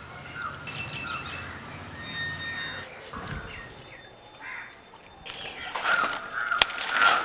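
Birds chirping and calling outdoors, then from about five seconds in a loud rustling and crinkling as the plastic sheet and dry palm-frond covers over the concrete fish tanks are handled, with a sharp click or two.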